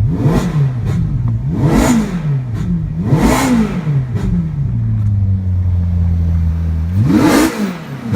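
Ferrari 458's 4.5-litre flat-plane V8, breathing through a freshly fitted Innotech Performance Exhaust, idling in neutral and blipped four times. Each blip sends the pitch quickly up and straight back down to idle: three in quick succession, then a pause at idle before the last one near the end.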